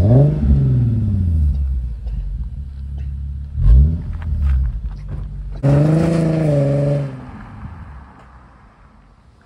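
The 3.7-litre V6 of an Infiniti Q50 with a Stillen axle-back exhaust being revved in place. There is a quick blip right at the start and another about three and a half seconds in, then a held rev of about a second and a half that cuts off suddenly. After that the sound is much quieter.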